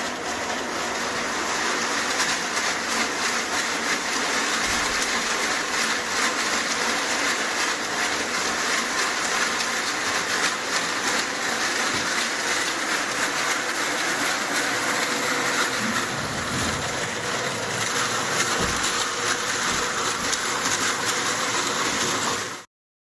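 Crushed ice grinding and rattling against copper ice-cream canisters that are turned and stirred by hand in tubs of ice, churning old-style artisanal gelato. A steady, dense grinding with no pauses, cut off abruptly near the end.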